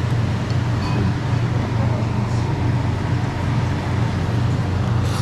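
Steady low hum of restaurant background noise with faint voices, the hum unchanging throughout.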